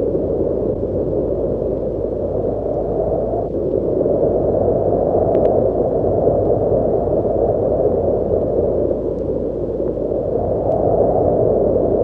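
Wind blowing, a dense low rushing noise that swells and eases in slow gusts.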